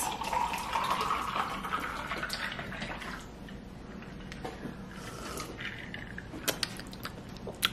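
Coconut water poured from a carton into a glass jar of ice, the filling sound rising in pitch as the jar fills and stopping about three seconds in. A couple of sharp clicks near the end.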